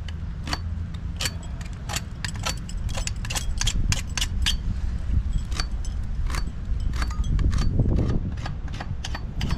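Rapid, irregular metallic clicks and knocks of hand tools working on metal, over a steady low rumble.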